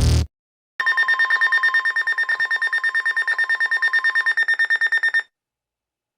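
Electronic music cuts off at the very start, then a weather alert receiver's alarm beeps rapidly, about ten beeps a second on high tones, for about four and a half seconds and stops. It signals an incoming National Weather Service warning.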